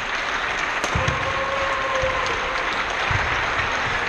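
Spectators applauding, a dense, steady clapping that fills the gym, with a few low thuds about a second apart.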